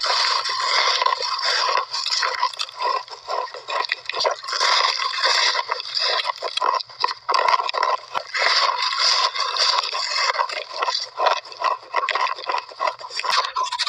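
Close-miked chewing of big mouthfuls of shaved ice: dense, continuous crunching and crackling.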